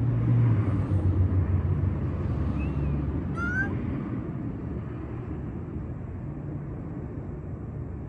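Low rumble of a motor vehicle, loudest at first and fading over the first couple of seconds, under a softer ongoing traffic rumble. About three and a half seconds in there is one short, high, rising call.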